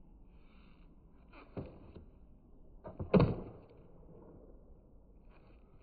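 Skateboard knocking on concrete during kickflip attempts: a lighter knock, then a louder one about a second and a half later as the board is popped or lands.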